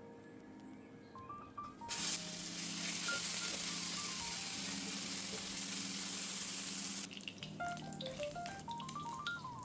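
Cooking food sizzling in a hot pan over light background music. The sizzle starts abruptly about two seconds in as a loud, steady hiss, then turns to irregular crackling and popping near the end.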